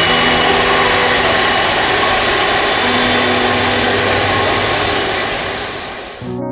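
Jet airliner's engines on landing approach: a loud, steady roar with a few whining tones that starts to fade about five seconds in and is cut off abruptly near the end, where piano music comes in.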